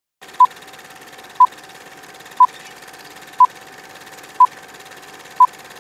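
Film-leader countdown sound effect: a short electronic beep of one pitch once a second, six in all, over a steady hiss with a faint constant hum.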